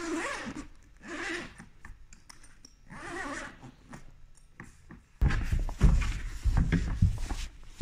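23 Zero pull-out awning being unrolled by hand: its fabric and cover rustle and slide softly at first. About five seconds in it turns much louder, with heavy low thuds and scuffing as the fabric is dragged across the workbench right up against the microphone.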